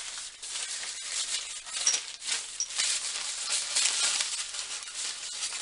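Steady rattling and rustling of small hardware being handled: dense little clicks and crackles with no pause.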